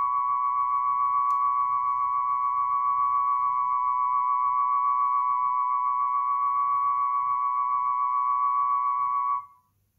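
Steady test tones near 1 kHz, 1000 Hz and 1125 Hz together with a 6 Hz low-frequency signal, played from a test record through an Audio-Technica AT-3600L cartridge on a Dual 721 turntable. This is one band of a tonearm-resonance test. The tones cut off about half a second before the end, with a faint low hum underneath.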